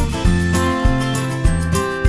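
Background music with held notes and a steady beat.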